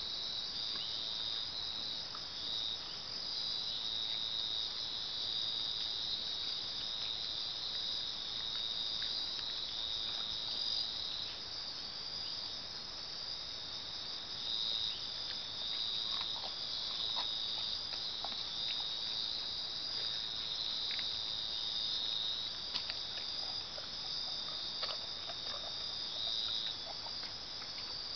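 Steady chorus of night insects trilling at a high pitch, two tones running together and swelling slightly now and then. Faint scattered ticks and rustles in the second half.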